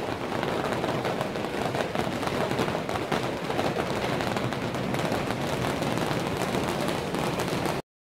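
Rain pattering close to the microphone, a loud, dense crackle that cuts off suddenly near the end.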